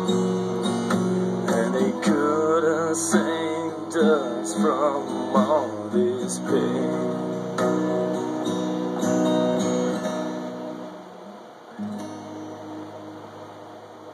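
Acoustic guitar strumming the song's closing chords, with a wavering wordless vocal line over it in the middle. The strumming then thins out, and a last chord rings and fades near the end.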